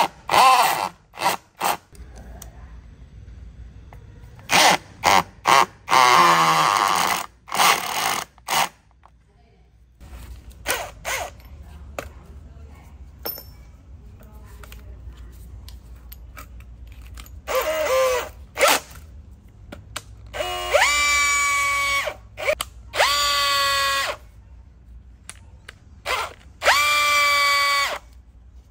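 21 V brushless cordless drill run in short bursts as it drives screws into a wooden plank. After a quieter stretch, it is run free in several separate trigger pulls, each rising quickly to a steady whine.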